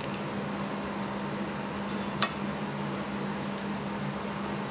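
A steady low hum with one sharp metallic clink about two seconds in: a wire-mesh strainer knocking against a steel pot while straining broth.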